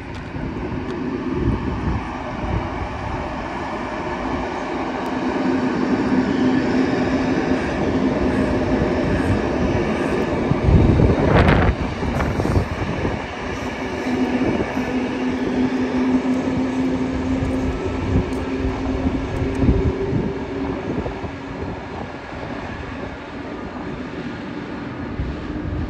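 Serbian Railways electric multiple unit pulling away: a steady hum over the rumble of its wheels on the track. A brief louder rush comes about halfway through.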